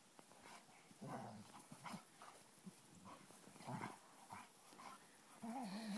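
Old English Sheepdogs play-fighting, giving several faint, short growls and grunts.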